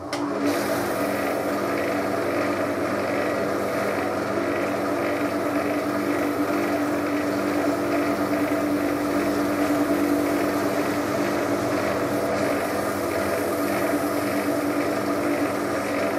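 Wood lathe motor running steadily, a constant hum with a strong low tone that starts abruptly at the beginning.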